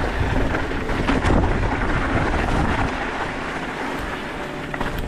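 Wind buffeting the camera microphone over the rumble of a mountain bike's tyres rolling down a dirt trail, with a few small clicks and rattles from the bike.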